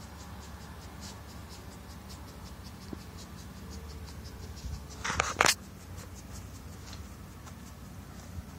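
A brief loud scratchy rustle in grass about five seconds in, as a cat and dog scuffle and paw at the lawn. Under it is a steady low background with a faint fast ticking in the first half.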